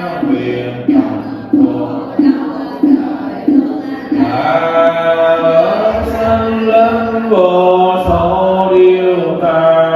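Vietnamese Buddhist sutra chanting by voices in unison. It pulses in a steady beat about every two-thirds of a second for the first four seconds, then moves into a slower sung melody with long held notes.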